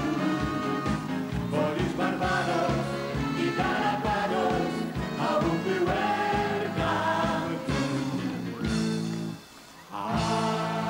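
Live pop band music with a steady drum beat and sustained instrumental and vocal lines. Near the end it stops for about half a second, then a new held chord starts.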